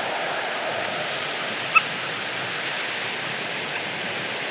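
Steady rushing noise of surf along an ocean beach, with one brief high chirp about two seconds in.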